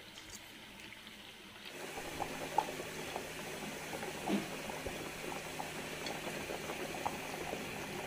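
A pot of idli kulambu (thick curry gravy) bubbling on the stove, with many small pops. It comes in about two seconds in, after a quieter start.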